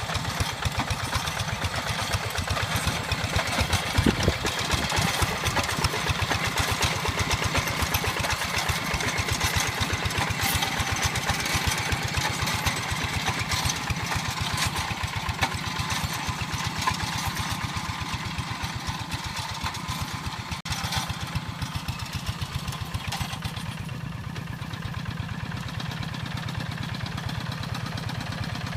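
Single-cylinder diesel engine of a two-wheel hand tractor running under load while plowing a wet rice paddy, with a fast, even chugging beat. It eases off somewhat in the last third.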